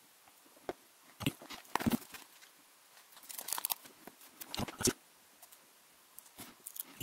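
Paper backing on adhesive foam pads crackling and tearing as it is peeled and the pads are handled, in a few short spells of rustling clicks.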